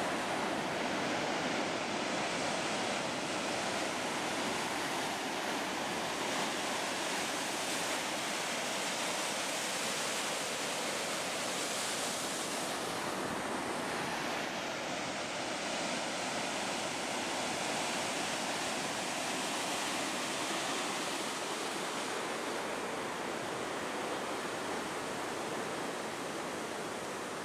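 Heavy winter storm surf: waves breaking and whitewater churning, a steady wash of water noise with no let-up.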